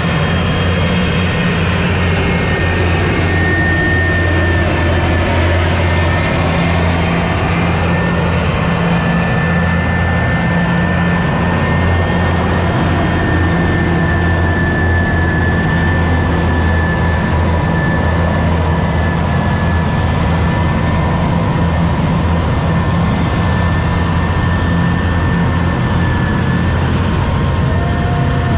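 Column of tracked armoured vehicles, K21 infantry fighting vehicles and K2 tanks, driving past with their heavy diesel engines running: a steady low rumble with a high whine held throughout.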